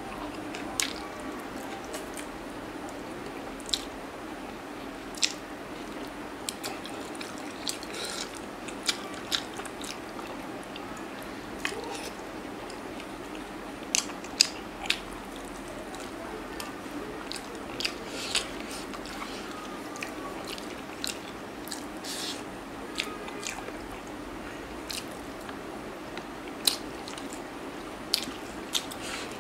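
Close-up mouth sounds of a person eating chicken and rice by hand: chewing with irregular sharp clicks and crunches, over a steady hiss.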